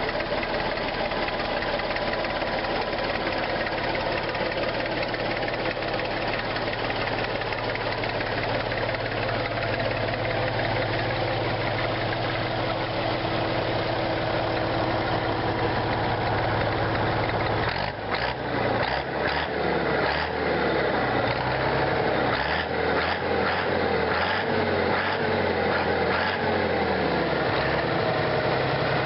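Landini 10000 S Mk II tractor's Perkins A6.354.4 six-cylinder diesel engine running at a steady idle. About two-thirds of the way through, the engine note changes and then rises and falls, with a few sharp clicks.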